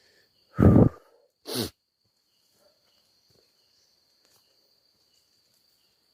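A person sneezing once: a short, loud voiced intake followed by a sharp, breathy burst about a second later.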